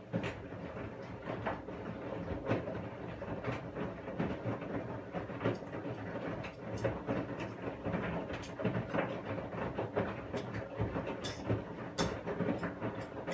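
Washing machine drum starting to turn after a pause in the wash cycle, the laundry and water churning steadily, with a sharp knock roughly once a second.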